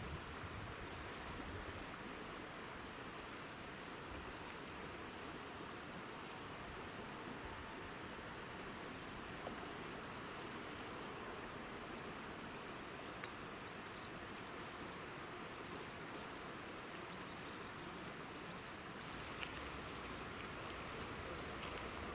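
Faint rural outdoor ambience with a steady hiss. Through most of it, short high chirps from a small bird or insect repeat two or three times a second, then stop a few seconds before the end.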